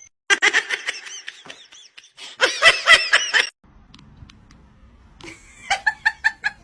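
High-pitched laughter coming in three bursts of quick pulses, the last a fast, even run near the end.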